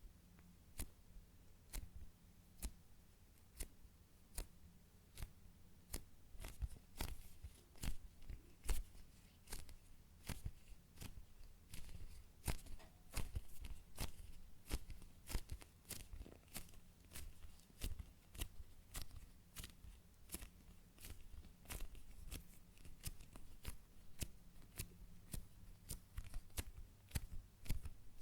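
Fingers squeezing and pressing a low-rebound foam chocolate-bar squishy toy, making a string of short sharp clicks and crackles at about one to two a second.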